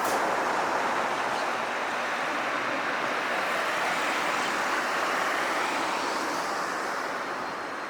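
Road traffic at a street intersection: a steady rushing of passing vehicles that slowly fades.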